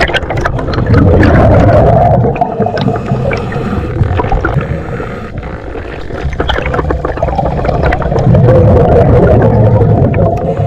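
A diver's exhaled air bubbles rushing and gurgling underwater, heard close to the microphone, in two long surges about seven seconds apart with small clicks and pops between them.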